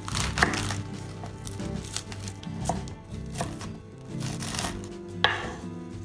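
Chef's knife cutting through a wedge of iceberg lettuce on a wooden cutting board, stroke after stroke. Each cut rustles through the leaves and ends in a knock of the blade on the board, the sharpest about half a second in and again about five seconds in.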